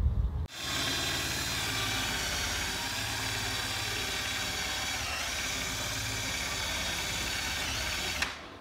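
Power drill spinning a rubber wheel against a car's door panel to strip off old adhesive. The motor whine is steady, starting about half a second in and cutting off just before the end.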